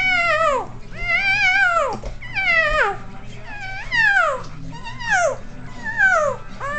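A person making high, squeaky kitten-like mewing cries with the voice, about seven in a row, each sliding down in pitch.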